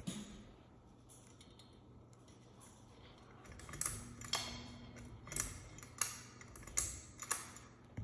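Ceiling fan pull-chain switch on a Seagull Lighting 52-inch fan, clicking as the chain is pulled. There are about six sharp clicks over the last four seconds, under a faint steady hum.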